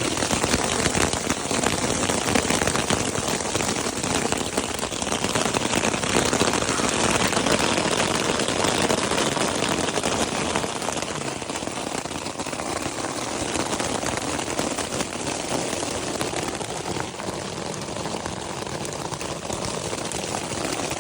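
Hail pelting a tent: a dense, continuous patter of hailstones striking the fabric, easing slightly about halfway through.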